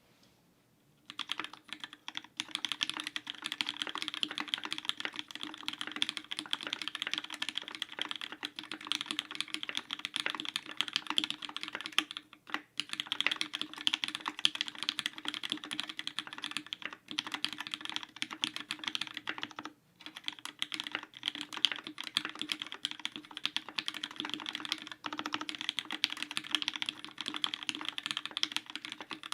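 Mechanical keyboard typing: a Duck Lightsaver v3 with lubed, broken-in vintage Cherry MX Black linear switches on 62 g springs, a stainless steel plate and GMK keycaps, typed on quickly and continuously. Typing starts about a second in and breaks off briefly a few times.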